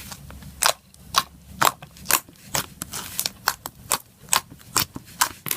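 Aqua clicky slime with micro foam beads being pressed and stretched by hand, giving off a string of irregular sharp clicks and pops, about two or three a second.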